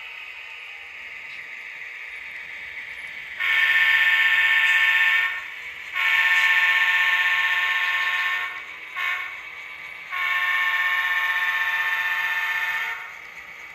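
Model locomotive's sound-system horn sounding the grade-crossing pattern: two long blasts, a short one and a final long one, over a steady background hiss.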